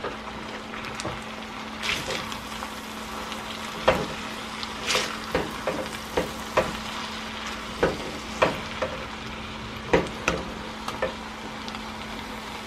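Cabbage and spaghetti sizzling in a stainless steel skillet while a metal slotted spoon stirs them, scraping and clinking against the pan at irregular intervals. A faint steady hum runs underneath.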